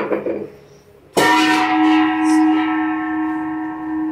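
A metal object struck once about a second in, ringing on like a bell with a strong low tone and several higher ones, fading only slowly.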